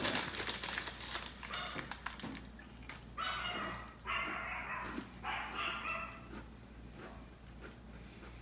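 Plastic snack wrapper crinkling for the first couple of seconds, then three high-pitched whining cries, each under a second, close together.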